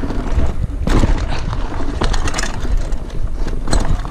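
Mountain bike ridden fast down a dirt trail, heard from a camera on the rider: wind rumbling over the microphone, tyres running on dirt, and the bike knocking and rattling over bumps.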